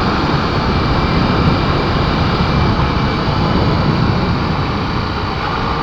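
Honda XR250 Tornado's single-cylinder four-stroke engine running steadily while riding along the road, under a dense, even rush of wind and road noise.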